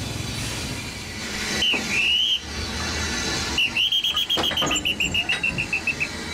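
High, thin whistled notes: one note that dips and rises about two seconds in, then a run of about a dozen short notes, about five a second, slowly falling in pitch. A few sharp metallic clicks come with the start of the run, over a steady background hiss.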